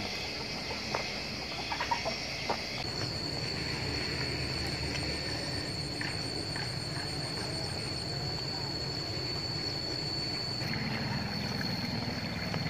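Rural outdoor ambience: a steady high-pitched insect drone, with a few footsteps on the path in the first three seconds and faint chicken clucking now and then.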